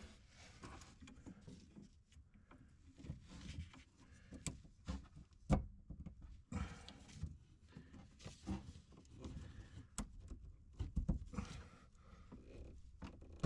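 Handling noise of plumbing work on pipe and fittings: scattered light clicks, taps and knocks with rustling. The sharpest knock comes about five and a half seconds in.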